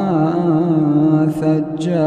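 A man's voice reciting the Quran in melodic tajweed, holding one long drawn-out vowel with a gently wavering pitch, then two short hissing sounds near the end.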